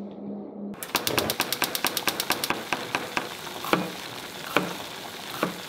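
Food sizzling in a hot frying pan, starting suddenly about a second in: a dense rapid crackle of oil that thins out into scattered louder pops.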